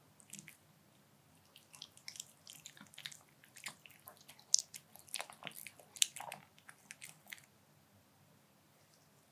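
A white Pomeranian chewing black bean noodles, close-miked: a run of quick wet clicks and smacks that stops about two seconds before the end.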